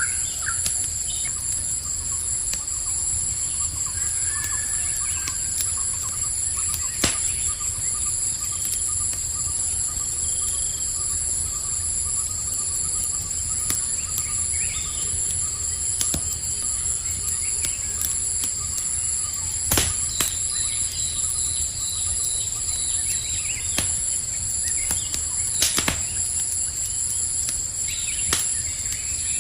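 Crickets chirring steadily in a high, pulsing chorus, over the low hiss of a campfire with a few sharp crackling pops spread through. Faint short bird chirps are heard now and then.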